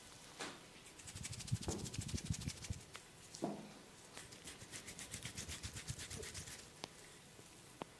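Close-up scratching and rubbing of hair and scalp during a head massage: rapid rustling strokes with soft thuds and a few sharp clicks.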